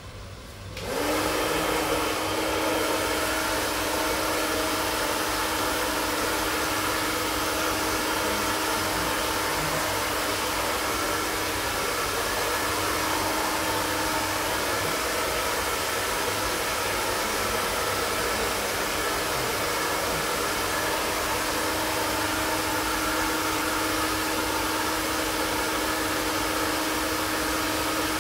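Prife iTeraCare iTera-Pro handheld terahertz blower switched on about a second in, its fan then running steadily like a hair dryer, with a steady hum.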